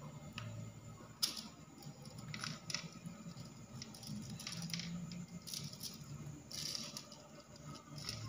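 Short, irregular splashes and clicks of water in a shallow aquarium as a hand moves through it handling a snakehead fish, about seven in all, over a low hum.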